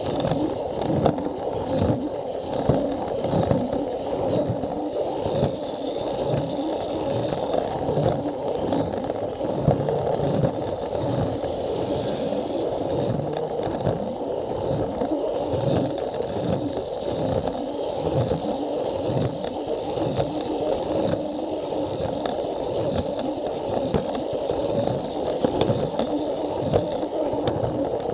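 Plarail toy train running along plastic track: its small motor whirs and its plastic wheels rumble and scrape on the rails, with a regular click about twice a second as they cross the track joints.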